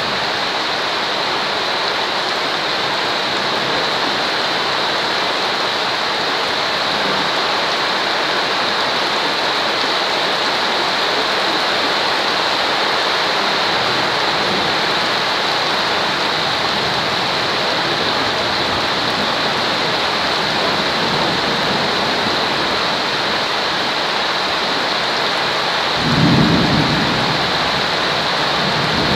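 Steady rain, with a short low rumble of thunder near the end.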